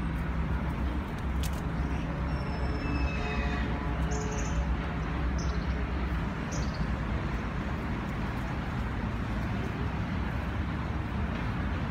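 Steady low rumble of distant city traffic, with a few short bird chirps about four to seven seconds in.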